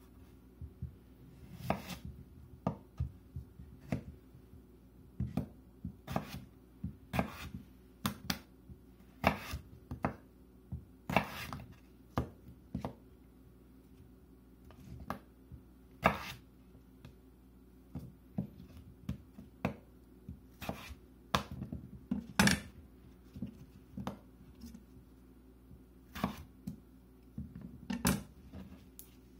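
Kitchen knife cutting russet potatoes into fries on a wooden cutting board: an uneven run of sharp knocks as the blade goes through and hits the board, with a short pause midway.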